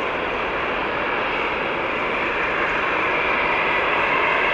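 Airbus A350-900's Rolls-Royce Trent XWB jet engines running as a steady hiss and rush, growing slightly louder over a few seconds.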